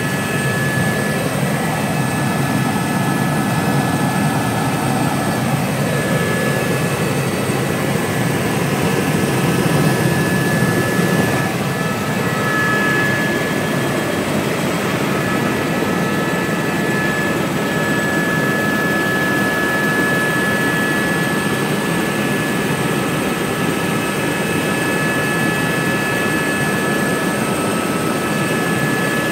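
Helicopter running: a steady turbine and rotor noise with a constant high whine, swelling briefly about ten seconds in.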